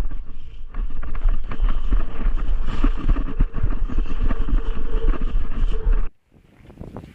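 Wind buffeting the microphone: a loud, uneven low rumble that cuts off abruptly about six seconds in.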